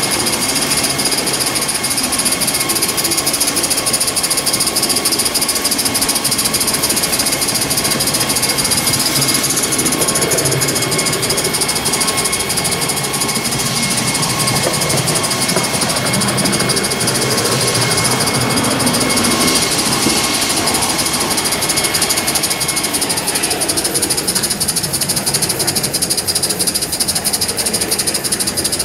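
Live-steam Gauge 1 model of a Southern Pacific F-4 2-10-2 locomotive running under steam: a steady mix of exhaust, steam hiss and the rattle of its wheels and running gear on the track.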